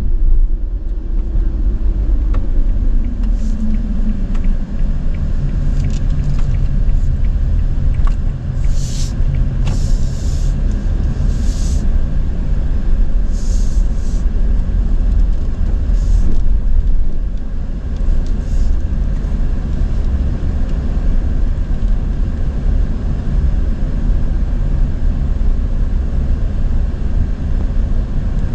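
Steady low road and engine rumble heard inside the cabin of a moving Toyota HiAce van, with a few brief hisses about eight to fourteen seconds in.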